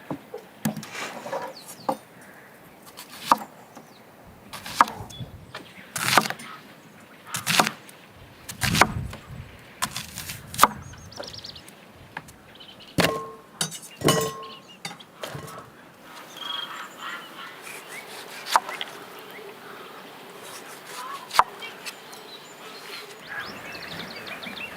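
Irregular sharp knocks and clicks, about fifteen spread unevenly, with a few faint bird chirps between them.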